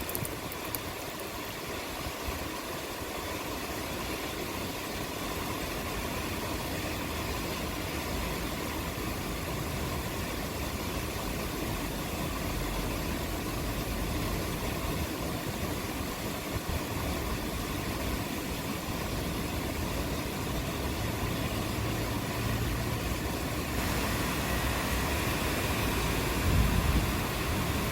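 Steady rain falling with a continuous hiss, and a short low rumble of distant thunder near the end.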